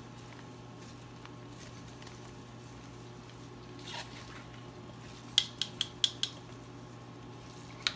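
A small plastic spoon tapping against the rim of a plastic mixing bowl, five quick clicks in about a second, knocking off chili paste, with a soft squish of gloved hands mixing sliced cucumber underneath and a steady low hum throughout.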